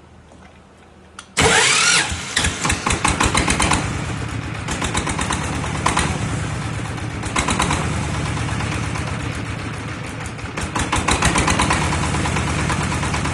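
Small single-cylinder diesel engine on a water well drilling rig being electric-started about a second in: a brief rising starter whine as it catches, then running with a fast knocking beat that swells louder and eases back a few times.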